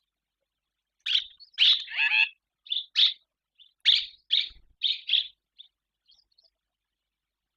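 Barn swallow calling: a quick run of about ten sharp chirps and twitters, with a brief lower warble among them, then a few faint calls trailing off.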